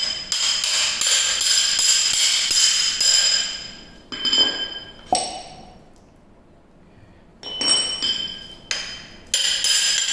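Steel demolition-hammer chisel bits clinking against each other and the tool, a quick run of taps at first, each ringing with a high metallic ring. After a short quiet gap come a few more ringing clinks near the end.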